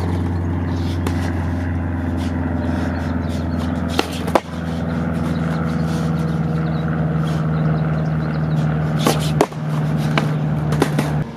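Skateboard tricks on concrete: sharp board clacks about four seconds in and a cluster of them around nine seconds in, over a steady low hum.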